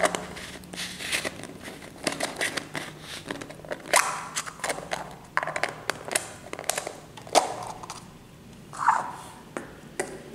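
Hollow plastic surprise egg handled in the fingers: scattered sharp clicks and taps of plastic, with light rustling between them.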